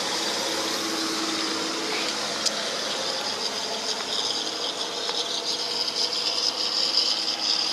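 Steady rasping and rattling from a fishing reel being wound against a line snagged on barnacle-covered tetrapods. It grows a little louder and rougher in the second half.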